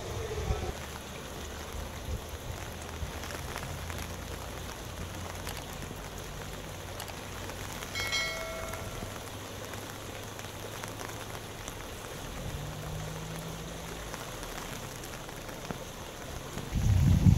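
Steady patter of rain and running water. About eight seconds in there is a short bright notification chime.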